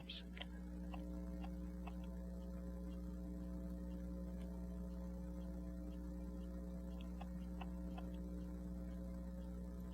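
Steady electrical mains hum, with a few faint small clicks scattered through it.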